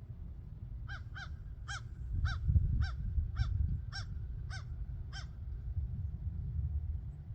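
A crow cawing about ten times in a quick, even series, roughly two caws a second. A low wind rumble on the microphone runs underneath and swells about two and a half seconds in.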